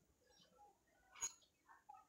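Near silence: room tone, with one brief faint sound a little over a second in.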